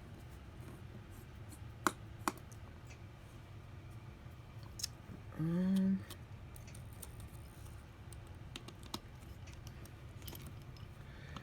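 A few small, sharp clicks and taps of hand tools on an iPhone SE's parts during disassembly, over a steady low hum.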